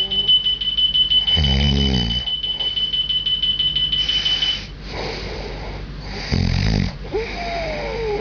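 An alarm clock beeping rapidly on one high tone, which stops about four and a half seconds in, while a person snores loudly through it. Heavy snores come at about one and a half and six and a half seconds, and a whistling tone slides down in pitch on the breath near the end.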